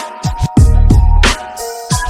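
Hip hop background music with a heavy bass beat.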